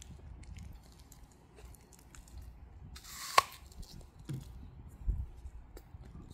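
A dachshund finishing a mouthful of apple: a few faint chewing clicks at first, then mostly quiet. About three and a half seconds in comes one sharp, crisp snap, the loudest sound.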